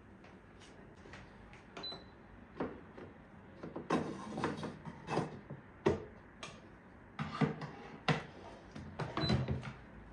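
Household items being handled and set down: an irregular run of knocks, clicks and short rattles, loudest about four, six and eight seconds in.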